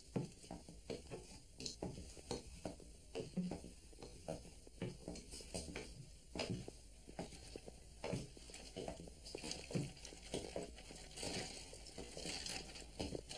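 Footsteps of several people walking across a stage floor: irregular taps and scuffs, a few per second.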